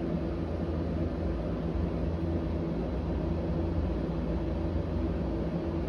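Steady low mechanical hum over a constant rushing noise, unchanging throughout.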